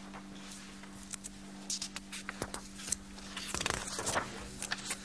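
A sheet of paper being handled and slid into place on a flat surface: scattered rustles, scrapes and small clicks, busiest about two seconds in and again near the end, over a steady low electrical hum.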